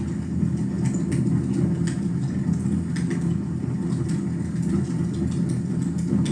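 Wood fire burning in a fireplace: a steady low rumble of flames with scattered sharp crackles and pops, about one every half second to a second.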